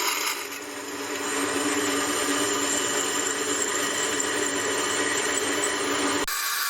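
Drill press running and drilling through a stack of steel plates: a steady motor hum under the scraping of the bit cutting metal. The sound changes abruptly near the end.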